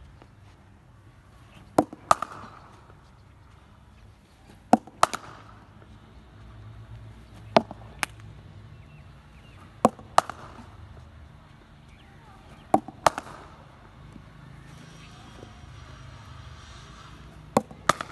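Cricket bat striking the ball in repeated practice shots: six times, each a pair of sharp knocks about a third of a second apart, every two and a half to three seconds.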